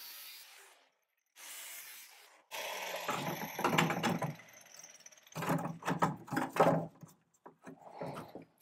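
Two short spells of hiss, then irregular knocking, clunking and rubbing as the cut rubber suspension cone and its trumpet are worked loose by hand from the rear subframe of a Classic Mini.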